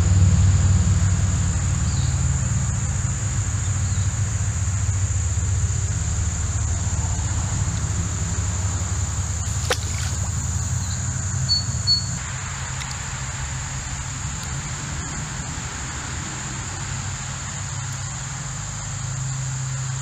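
Steady high-pitched insect drone over a low rumble of highway traffic, which fades over the first dozen seconds. There is a single sharp click about halfway through and two short high chirps soon after.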